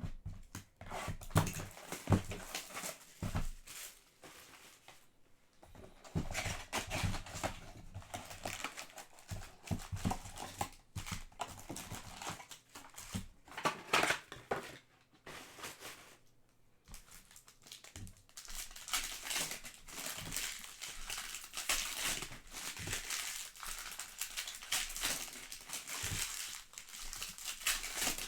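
Trading card packs being torn open by hand: crinkling and tearing of the foil pack wrappers in stretches, with short pauses between them.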